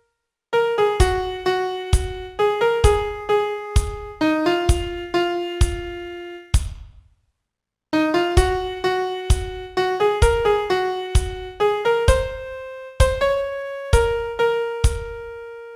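Solo piano playing a song's vocal melody one note at a time. It comes in two phrases, with about a second of silence between them a little before the middle.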